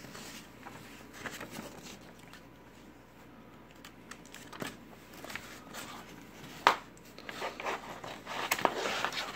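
Paper instruction booklet rustling as its pages are leafed through. About two-thirds of the way in there is a sharp tap, followed by denser crinkling of the plastic bags that hold the model kit's parts runners.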